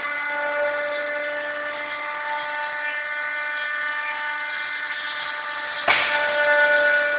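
CNC router spindle running with a steady whine. A sharp knock comes about six seconds in, after which it is a little louder.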